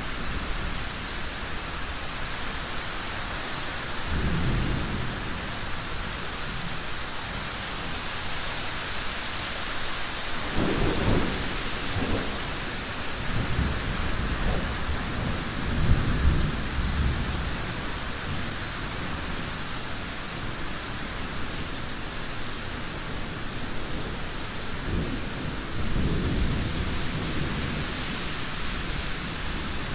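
Thunderstorm: a steady hiss of heavy precipitation, with low thunder rumbling in several swells, the loudest about halfway through.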